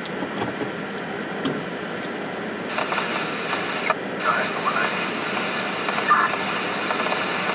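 Steady hiss of rain and wind, getting louder about three seconds in, with a few faint, brief voice-like sounds later on.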